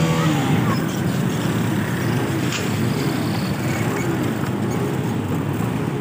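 Street traffic: engines of passing motorcycles and cars over a steady din, their pitch rising and falling as they go by.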